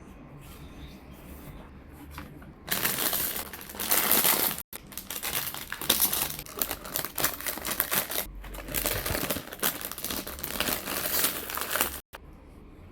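Model-kit packaging crinkling and tearing as it is handled and opened, loud and close, starting about three seconds in and running on until near the end, with abrupt brief cut-outs in between.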